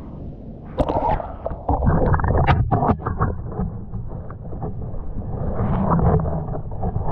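Camera going into shallow, weedy water: a splash with sharp clicks about a second in, then muffled underwater gurgling and low rumbling as it moves about below the surface.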